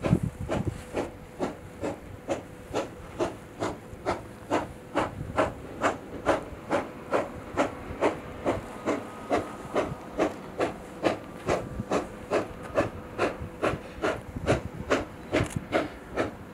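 Steam locomotive working a train with a steady chimney exhaust beat, about three beats a second, with a faint steady tone under the beats.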